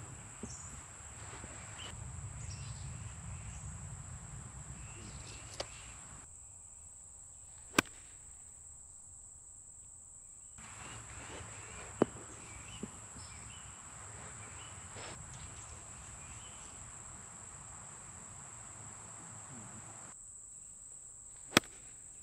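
Steady high-pitched insect drone from crickets, with a few sharp single clicks; the loudest, near the end, is a golf wedge striking the ball.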